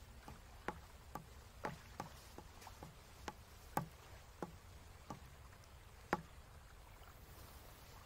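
Faint, scattered clicking taps, about a dozen at uneven spacing, growing sparser and stopping a few seconds before the end.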